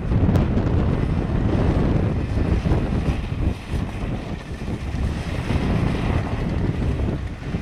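BMW E36 3 Series sedan driven hard through a slalom, its engine running under load, much of it masked by wind buffeting the microphone.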